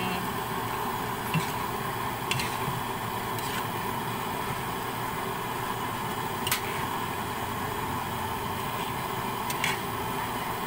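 Spatula stirring a thick sauce with vegetables in a metal pan: a steady hiss, with a handful of sharp clicks where the spatula knocks or scrapes the pan.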